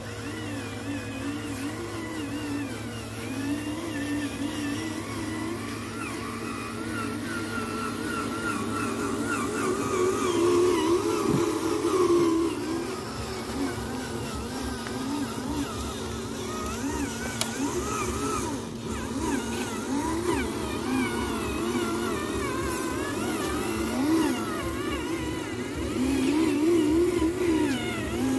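Small electric motors and gearboxes of radio-controlled construction vehicles whining, their pitch wavering up and down with the throttle.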